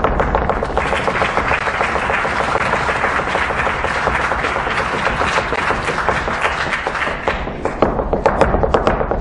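Flamenco footwork (zapateado): shoes striking a stage floor in rapid heel-and-toe stamps that speed into a dense, continuous roll about a second in, then break back into separate, accented strikes near the end.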